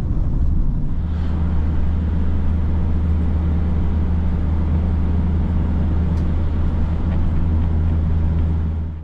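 Steady low drone of a moving road vehicle: engine and tyre noise with a constant low hum.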